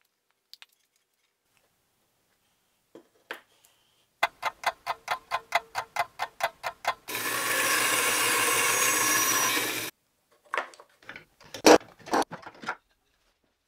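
Ratcheting band clamp being tightened around a glued segmented ring: a run of quick, even clicks, about five a second, then about three seconds of steady rasping, then a few sharper, louder clicks.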